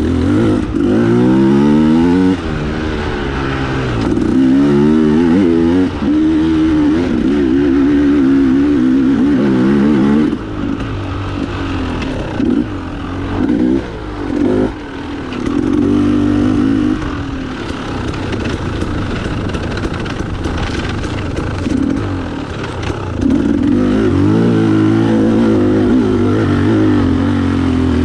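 Enduro dirt bike engine revving hard while riding off-road, its pitch climbing and dropping again and again as the throttle is opened and shut, with lighter throttle for a few seconds around the middle.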